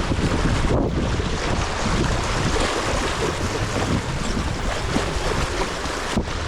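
Wind buffeting the microphone over sea surf washing around the rock ledge, a steady rushing noise with a heavy low rumble.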